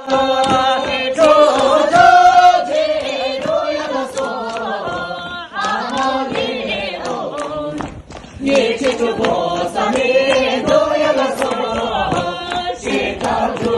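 A group of voices singing a Bhutanese folk song together. The singing breaks off briefly about eight seconds in and then resumes.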